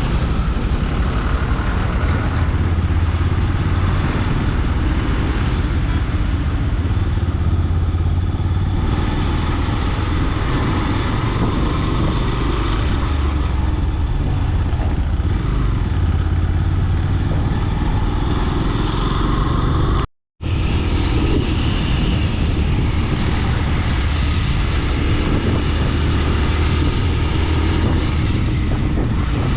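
Steady engine and road noise from a moving vehicle, heavy in the low end, with a brief total dropout about twenty seconds in.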